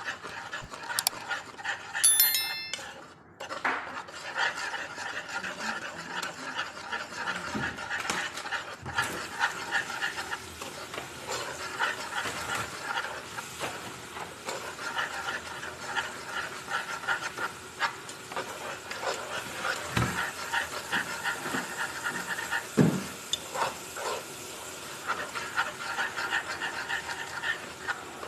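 A kitchen appliance's control panel beeps a few times as its buttons are pressed, about two seconds in. The appliance then runs steadily with a rasping, pulsing noise, with a couple of knocks near the end.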